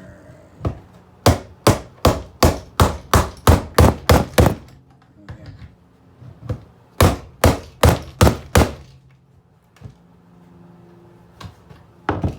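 Repeated sharp blows on an alarm clock being broken apart: a run of about ten knocks at two to three a second, a pause, then about five more and a few scattered knocks.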